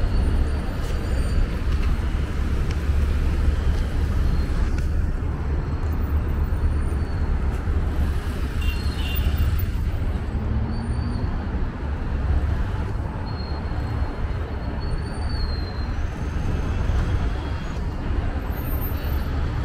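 City street traffic: a steady rumble of passing vehicles.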